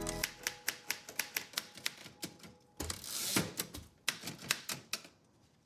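Manual typewriter being typed on: quick, irregular key strikes, with a short rushing sound about three seconds in.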